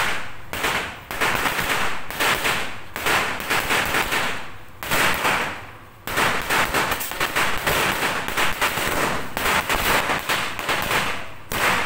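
A string of firecrackers bursting on the ground: a rapid chain of sharp bangs that thins out and picks up again several times, densest in the second half and dropping off briefly near the end.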